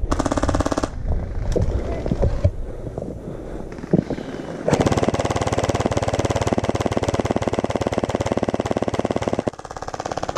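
Gel blaster firing on full auto: a rapid rattle of shots in a short burst at the start, then a long burst of about five seconds starting a little before the halfway point, with weaker fire trailing off near the end.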